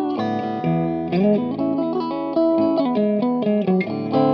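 Clean electric guitar playing a run of chords and single notes, with one note bent upward about a second in. It is a Fender Mexican-made Stratocaster with Collins Five 9 hand-wound prototype pickups, selector in the second position, through a Marshall JVM410's crunch channel set clean with slight reverb.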